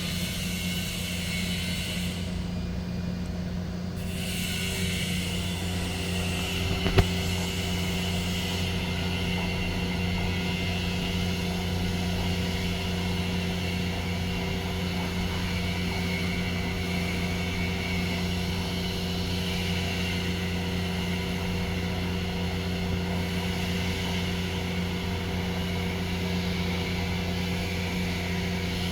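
Mighty Viper 1332 AG CNC vertical machining center running under power: a steady machine hum made of several low tones, with a single sharp click about seven seconds in.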